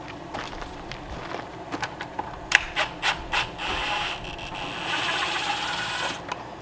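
A few sharp knocks on wood, then a small power tool runs steadily for about two and a half seconds with a faint high whine, as lumber for the form is worked on.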